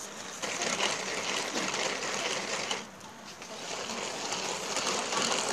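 Tupperware Speedy Chef hand-cranked mixer whirring as its crank is turned fast, beating egg whites and sugar into meringue. The whirring starts about half a second in, drops briefly about three seconds in, then picks up again.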